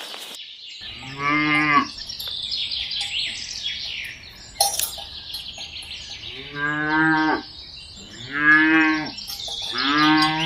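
A cow mooing four times, each moo about a second long and held at a steady low pitch, with high chirping going on behind.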